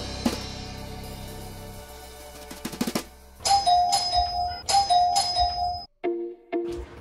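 Electronic doorbell chime ringing twice, a two-note ding-dong each time, about halfway through, over background music.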